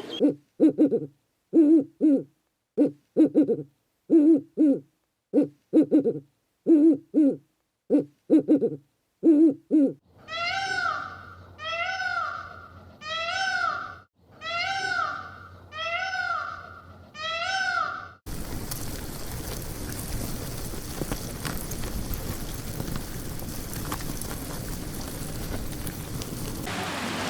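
Animal calls: about eight low double hoots at an even pace. These are followed by six higher calls that each rise and fall. After that comes a steady rushing noise like rain or water.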